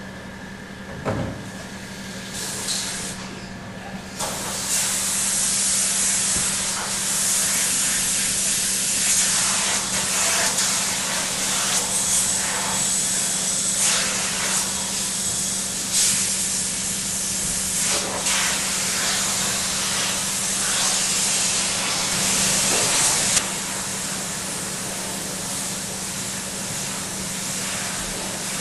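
Water spray from a hand-held spray gun hitting a screen-printing screen inside a washout booth, rinsing off degreaser. A couple of knocks come first, then a loud, steady hiss starts about four seconds in and drops to a softer hiss about 23 seconds in.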